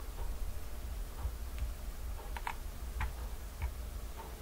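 A handful of sharp computer mouse clicks, scattered and unevenly spaced, the loudest about two and a half seconds in, over a steady low hum.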